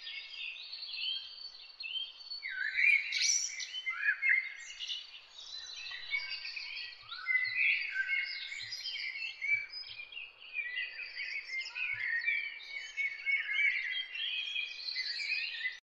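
Many birds chirping and twittering together: a dense run of short, high, overlapping calls that cuts off suddenly near the end.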